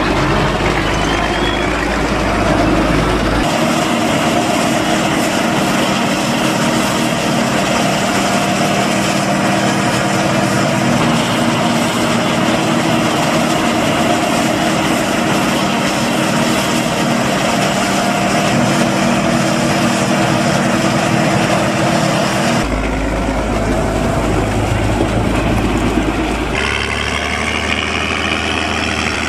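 Diesel engines of a forage harvester and tractors hauling forage wagons, running steadily, with the sound changing abruptly at several cuts. Near the end a tractor's engine note climbs in a rising whine.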